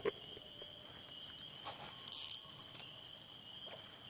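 A steady high-pitched trilling chorus holds on one pitch throughout. About two seconds in, a short loud hiss cuts across it.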